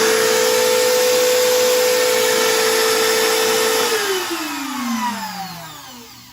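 A Makita 1¼ HP compact router and a small shop vacuum run together, both switched on from the router table's switch. The router gives a steady high whine over the vacuum's rushing hiss. About four seconds in they are switched off, and the whine falls in pitch and fades as the motors wind down.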